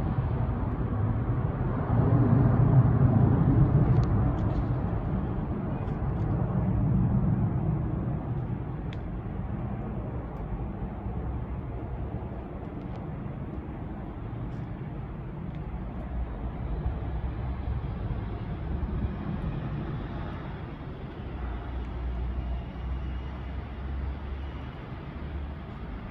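Airbus A330-300 jet engines rumbling after takeoff. The low rumble is loudest in the first several seconds, then slowly fades as the airliner moves away.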